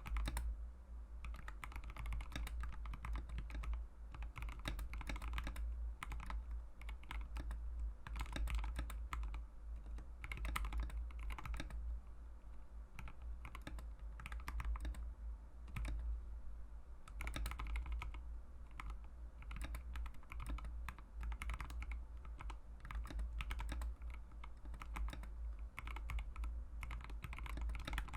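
Mechanical keyboard with Mauve linear switches being typed on continuously: a dense, unbroken stream of keystroke clacks, over a steady low hum.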